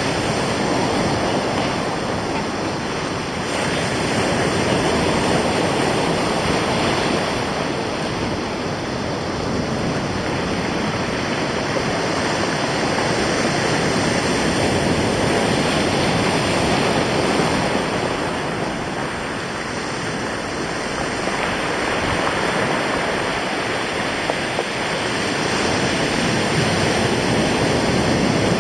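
North Sea surf breaking on a rocky, pebbly shore, a dense wash that swells and ebbs in slow surges every several seconds, with wind blowing over it.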